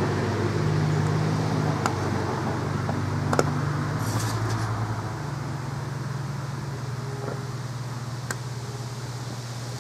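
Gasoline-fed fire burning in the wreck of an Xbox One: a steady rushing noise with three sharp pops and a brief hiss, over a steady low hum that eases after about five seconds.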